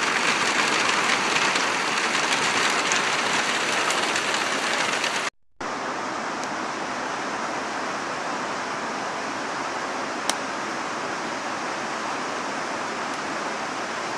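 Steady rush of creek water with rain falling. It breaks off for a moment about five seconds in and carries on a little quieter, with a single faint tick near the ten-second mark.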